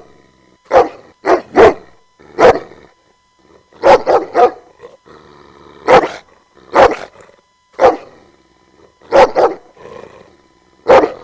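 A dog barking: about a dozen short barks at uneven intervals, some coming in quick pairs or threes.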